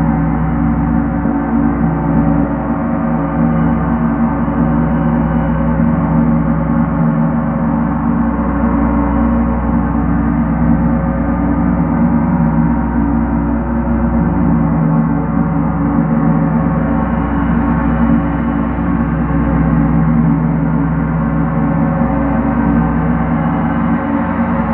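Large gong played continuously with two felt-headed mallets: a steady, dense wash of many overlapping tones that holds at an even loudness, with no single strike standing out.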